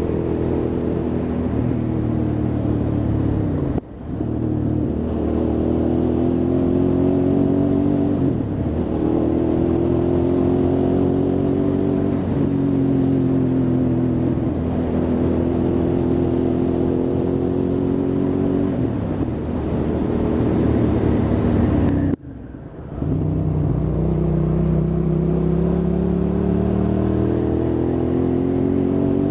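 Hyosung GT650R's V-twin engine running on the road, its pitch rising and falling repeatedly as the throttle opens and closes through gear changes. The sound drops away sharply for a moment twice, about four seconds in and again near 22 seconds.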